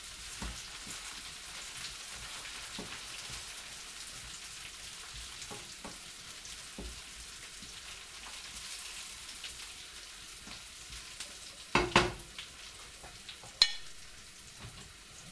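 Chopped spring onion sizzling steadily in a frying pan as it is stirred, with a few sharp knocks near the end.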